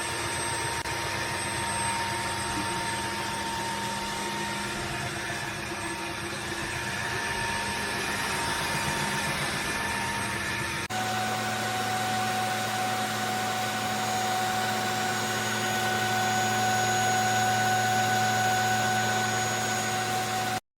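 Dreame H14 Pro wet-dry vacuum mop running: a steady motor hum with a high whine. About halfway through, the whine drops in pitch and the low hum gets stronger, and the sound cuts off just before the end.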